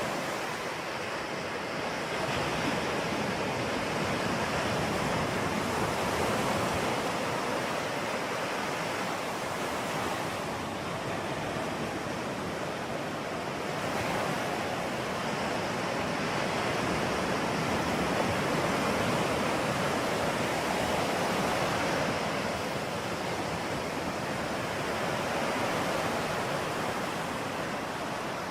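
Ocean surf: a steady wash of breaking waves, swelling and easing slowly every few seconds.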